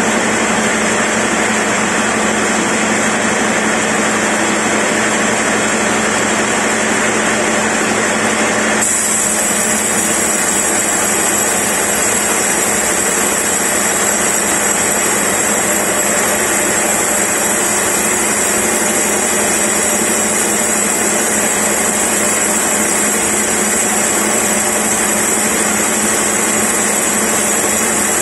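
Large band sawmill running steadily, its blade sawing lengthwise through a big log, with a constant motor hum under the cutting noise.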